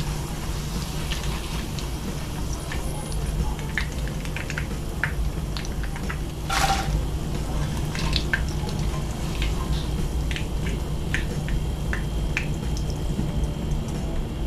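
Hot oil crackling in a frying pan, with scattered small pops and ticks over a steady low hum.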